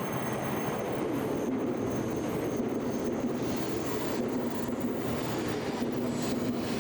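N700-series Tokaido Shinkansen train noise: a steady rumble with a low hum and no sudden events.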